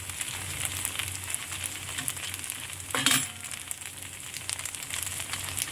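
Kuey teow noodles sizzling in a hot pan as they are stir-fried, with a brief louder scrape about three seconds in.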